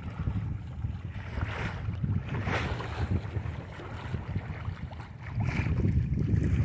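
Wind buffeting the microphone as an uneven low rumble, heavier near the end, with water sloshing and splashing against the side of a boat a couple of times.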